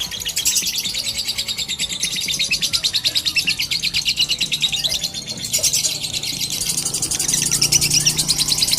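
Lovebird singing a long, rapid chattering trill of high chirps, the 'ngekek' prized in lovebird song contests, with a short break about five seconds in.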